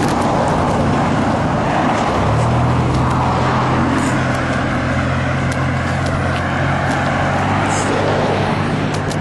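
Car engine running close by amid road traffic noise: a steady low engine hum comes in about two seconds in and holds, over an even roar of road noise with a few light clicks.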